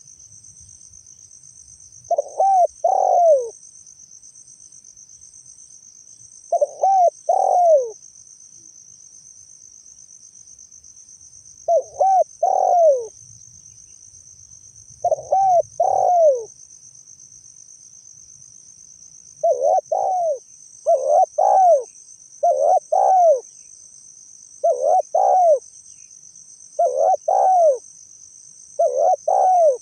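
Spotted dove (tekukur) cooing: about ten short phrases of two or three low, arched coos, a few seconds apart at first and coming every second or two in the second half. A steady high insect trill runs underneath.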